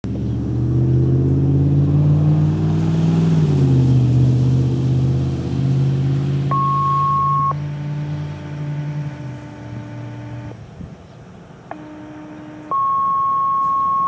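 A vehicle engine idling steadily, fading out about nine and a half seconds in. Over it, from about six and a half seconds in, a run of steady electronic tones: a one-second high tone, a three-second lower tone, another short tone, then a long high tone held to the end.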